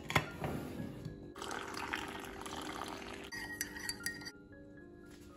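A clink from the metal sugar canister at the start, then liquid swishing and a spoon clinking against the mug as coffee is stirred. Soft background music plays under it.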